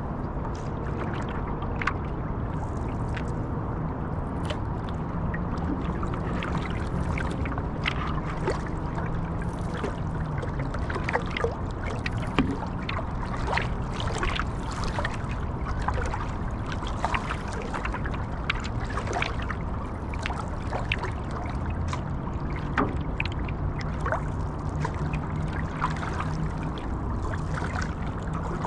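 Water lapping and small irregular splashes around a paddle board on a river, over a steady low rumble.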